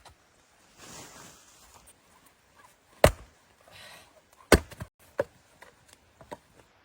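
A series of sharp knocks: two loud ones about a second and a half apart, then two fainter ones, with soft rustling or scraping between them.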